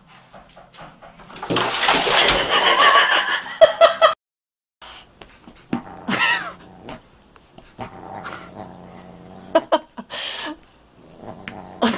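A cat and a dog squabbling: a loud stretch of yowling and growling for about two and a half seconds, a brief silence, then scattered short growls and whines with soft knocks.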